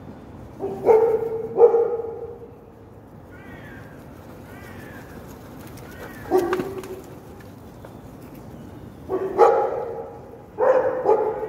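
Dogs barking in short bouts: two barks about a second in, one around six seconds, and a couple more near the end. Fainter, higher bird calls come in between.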